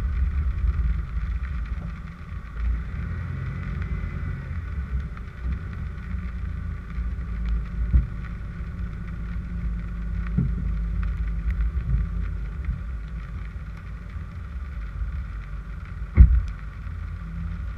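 Car engine running low and steady, easing off in the first couple of seconds as the vehicle slows and then sits still. A short knock comes about halfway through, and a sharp, louder thump comes near the end.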